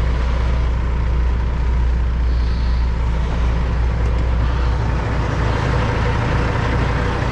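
Kenworth W900 semi truck's diesel engine running steadily at low revs while the truck creeps along slowly: a deep, even drone with a thin steady whine over it.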